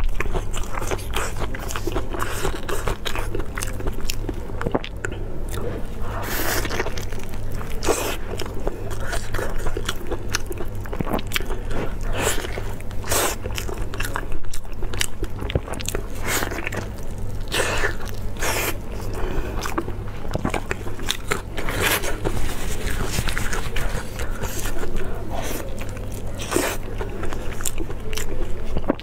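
Close-miked chewing with wet tearing and crackling as a lamb-stuffed sheep's stomach is pulled apart by gloved hands, in many irregular small clicks and crackles. A steady low hum runs underneath.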